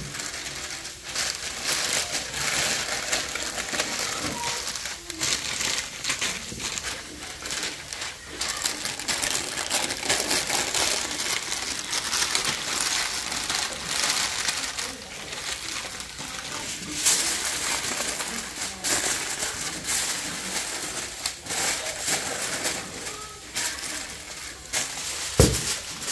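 White paper and then aluminium foil being spread and pressed down over a roasting tray: continuous crinkling and crackling, with a few louder crackles.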